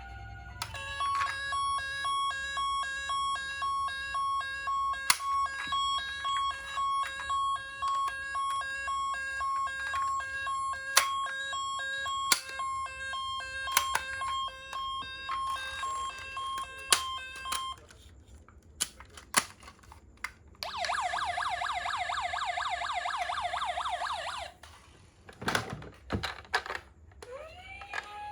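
Toy ambulance minicar's electronic siren chip sounding: a steady, pulsing high beep pattern for about seventeen seconds, then a few sharp clicks. Near the end comes a fast-warbling siren tone for about four seconds, followed by more clicks.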